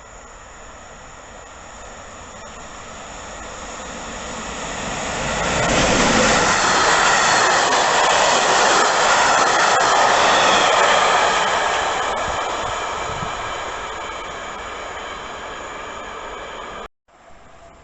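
A train passing along the tracks, its rumble and wheel noise on the rails building over the first few seconds, loud for about five seconds, then fading. The sound cuts off suddenly near the end.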